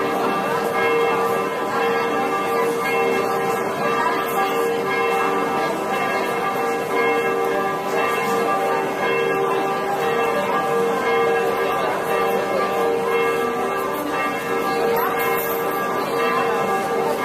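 Church bells ringing continuously, their overlapping tones sustained.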